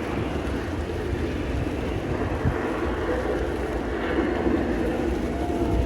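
Mount Prometheus's volcano eruption effect: a steady, rumbling roar with no distinct blasts.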